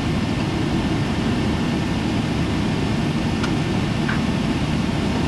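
Steady low cabin rumble of a Boeing 777-300ER taxiing, its GE90 engines at idle, heard from inside the passenger cabin.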